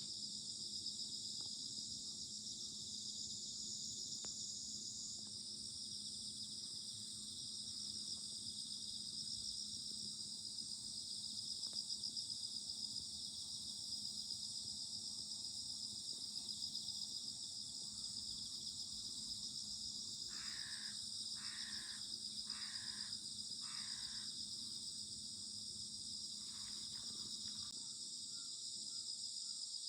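Chorus of autumn insects, a dense steady high-pitched trilling throughout. About two-thirds of the way in, a bird calls four times in quick succession, then twice more faintly.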